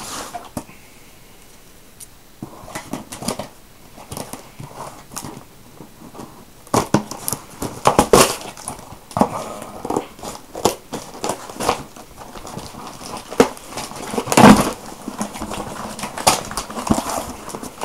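A parcel being unpacked by hand: cardboard and packing material rustling and crinkling, with scattered clicks and knocks and one louder thump near the end.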